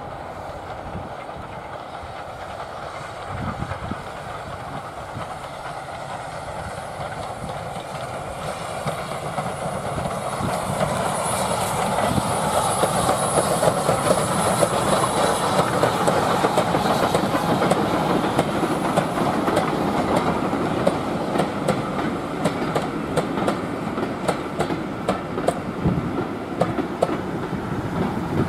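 A double-headed steam train approaches and passes close by, growing steadily louder until it is loudest about halfway through. The coaches then roll past with a fast clickety-clack of wheels over the rail joints.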